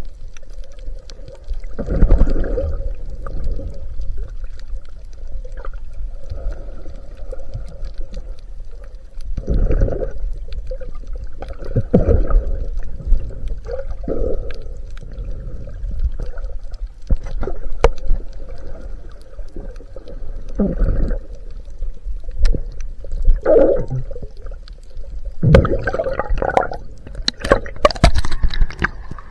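Muffled underwater water noise from a snorkeler's chest-mounted camera, swelling in surges every few seconds as the swimmer moves and breathes. It turns to splashing and bubbling near the end as the camera nears the surface.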